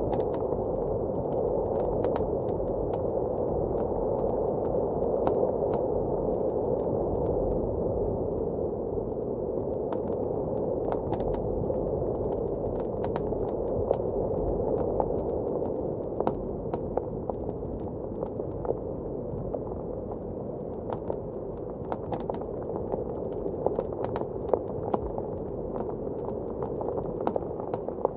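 A blizzard's steady, low wind roar heard from indoors, with a wood fire crackling over it in scattered sharp pops that come more often in the second half.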